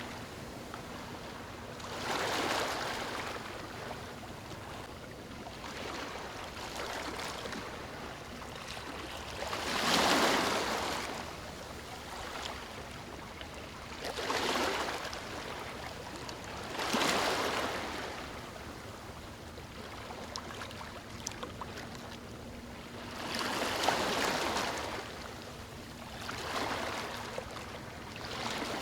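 Ocean waves breaking on a beach, the surf rising and fading every few seconds, with stronger breakers about ten and seventeen seconds in.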